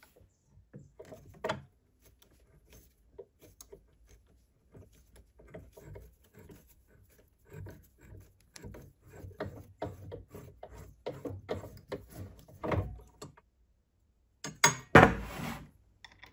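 A tap held in a drill-press chuck threading a hole in an iron pipe tee: irregular creaks and clicks as the tap cuts, with no motor running. Near the end comes a louder metal scrape and knock.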